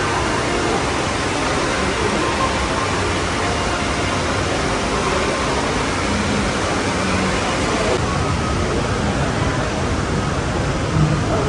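Steady, even hiss of a large indoor shopping mall's background noise, with no single clear source standing out.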